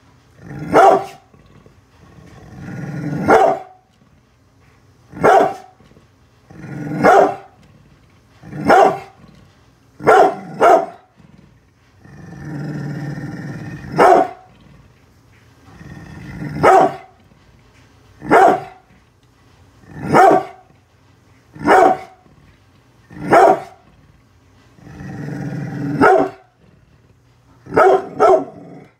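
Brindle pit bull barking a protective warning at people outside: about fifteen single loud barks, roughly every two seconds. Three of the barks are preceded by a low growl that builds over a second or two, and near the end two barks come close together.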